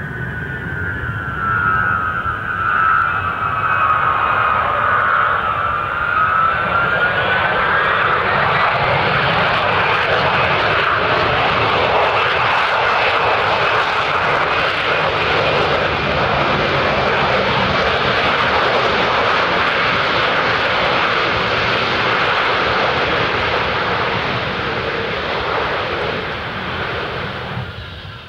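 Ilyushin Il-62 jet airliner landing, its four rear-mounted jet engines heard throughout. A whine falls in pitch as it settles onto the runway, then rises again about six seconds in. From there a loud, steady roar builds and holds through the rollout, fading away right at the end.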